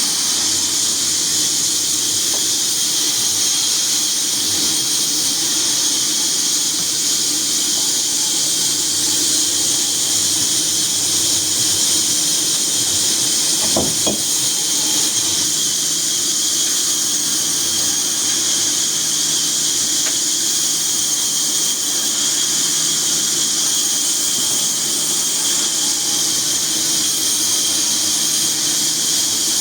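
Sawmill saw running, a steady high-pitched squeal and hiss that holds unchanged, with one short knock about halfway through.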